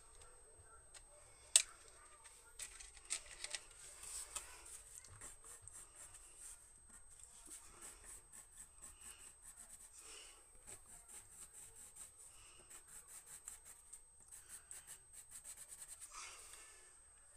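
A coloured pencil scratching in short, quick strokes on toned drawing paper, faint throughout. A sharp click about a second and a half in comes from a pencil being handled at the metal pencil tin.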